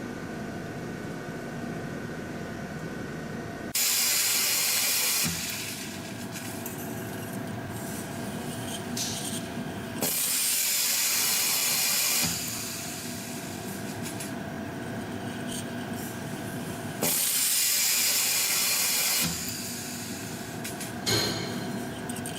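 Yeou Heuy FPS-2 CNC flat-wire piston spring coiling machine running: a steady hum with held tones, broken three times by a loud rushing noise about two seconds long, about seven seconds apart in a regular cycle, and a sharp click near the end.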